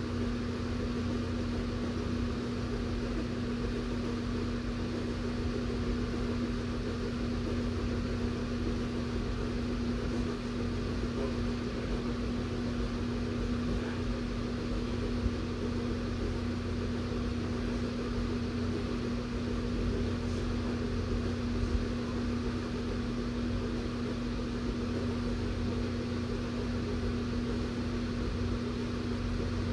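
A big room fan running steadily: a constant hum holding one steady pitch over a low rumble.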